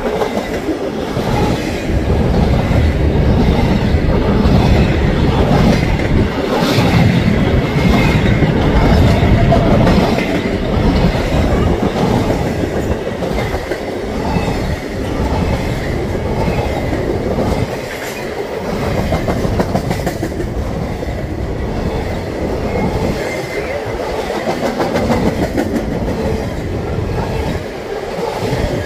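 A BNSF intermodal freight train's flatcars, loaded with semi-trailers, rolling past close by: a loud, steady rumble of steel wheels on rail with occasional knocks and a faint high squeal at times.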